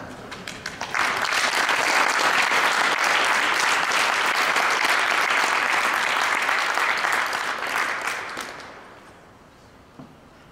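Audience applauding. A few scattered claps build quickly into full applause that holds for about seven seconds and then dies away, with one faint knock near the end.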